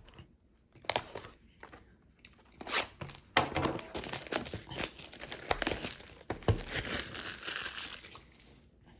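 Plastic or foil trading card packaging being handled and torn open: a few light taps, then from about three and a half seconds in a steady run of crinkling and tearing that stops near the end.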